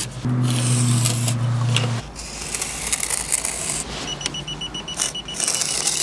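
A steady low hum for about two seconds, then from about four seconds in a run of rapid, evenly spaced high-pitched electronic beeps.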